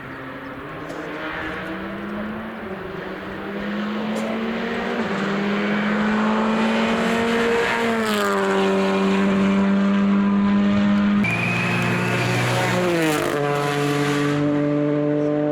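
Turbocharged rally car engine at full throttle on approach, growing steadily louder. Its note drops sharply at two upshifts, about eight and thirteen seconds in.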